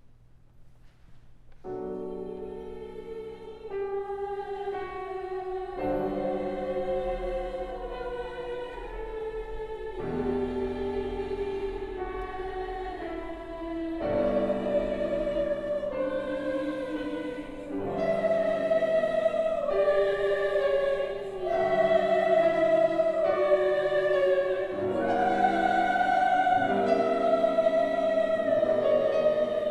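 Choir singing slow, sustained chords in a sacred choral piece. It enters about two seconds in and grows louder in steps as it goes.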